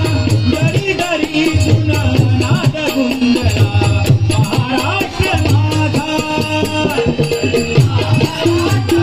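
Marathi bhajan music: voices singing over a steady beat of low drum strokes and a jingling, rattling percussion.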